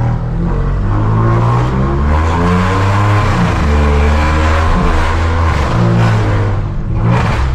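Volkswagen Virtus 1.0 TSI three-cylinder turbo engine accelerating through a straight-through exhaust: stainless downpipe and catback with no mufflers. It is loud, with the revs climbing and dropping back in steps as it changes gear.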